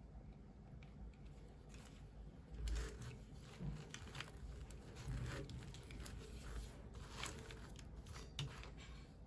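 Toy packaging being unboxed by hand: faint rustling, crinkling and tearing, with scattered light clicks and taps, a little louder about three seconds in.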